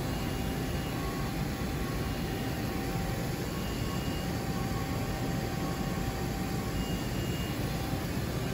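Steady low rumble of machine-shop background noise, with a couple of faint steady whining tones running through it.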